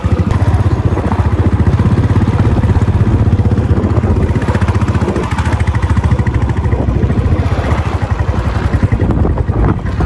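Motorcycle engine running steadily under way along a rough dirt track, a fast even exhaust pulse.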